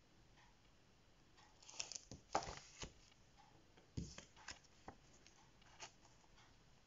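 Plastic sheet protectors holding coloring pages crackling and rustling as a page is lifted and turned, then a low thump about four seconds in as the next one is laid down, with a few light clicks after.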